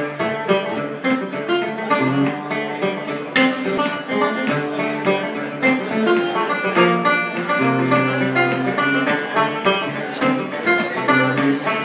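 Background music: a quick run of plucked-string notes over a steady bass line.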